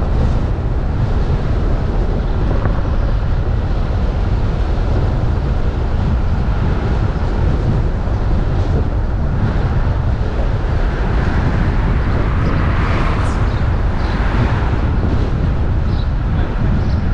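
Steady low rumble of wind buffeting a hood-mounted camera's microphone, mixed with road and engine noise from a Jeep driving slowly. A brief swell of hiss comes about two-thirds of the way through.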